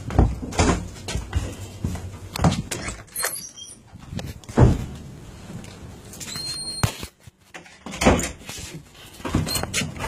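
A door knocking and banging as it is handled and shut, with the phone being jostled, giving about half a dozen irregular thumps and knocks.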